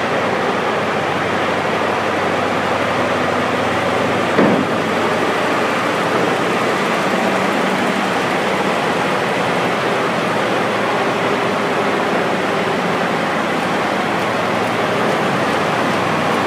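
Liebherr T 284 diesel-electric mining truck running as it drives slowly, a loud even rush with a faint low hum underneath. A single short knock about four and a half seconds in.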